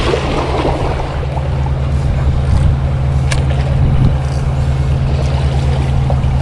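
A hooked Asian sea bass thrashing and splashing at the water's surface against the rocks, over a steady low drone.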